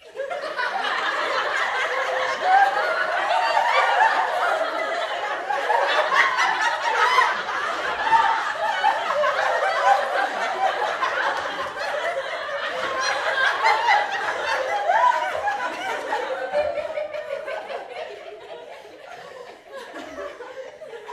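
A crowd of people laughing together, many voices at once. It starts suddenly and dies down over the last few seconds.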